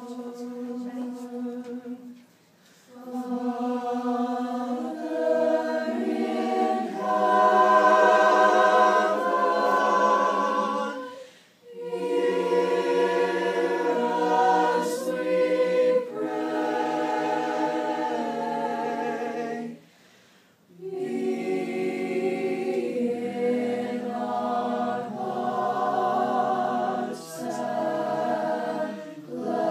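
Mixed group of young men's and women's voices singing a cappella in harmony, in long held phrases with brief pauses between them.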